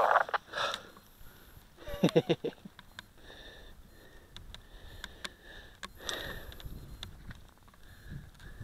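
A person breathing hard and sniffing close to the microphone, with a short run of loud, voiced breaths about two seconds in. Light clicks and rustles come from the paraglider's lines and risers being handled.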